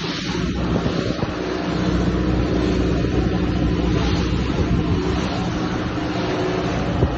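A boat's engine running steadily at an even speed, with a low hum under a broad rushing noise.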